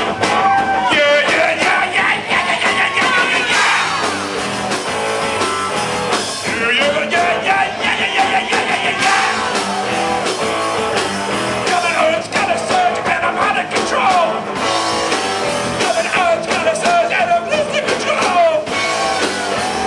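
A band playing a rock song, with a voice singing over it.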